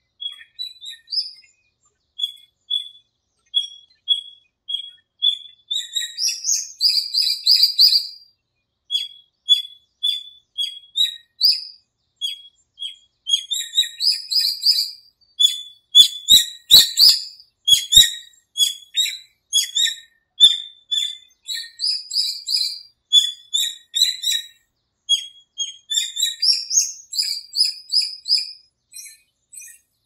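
Small songbirds chirping: runs of short, high notes about twice a second, with quick trills mixed in. A few sharp knocks come about halfway through.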